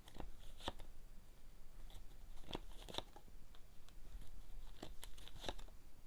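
Lenormand cards being handled, shuffled and drawn from the deck: a handful of sharp snaps and clicks of card stock, spread irregularly over several seconds.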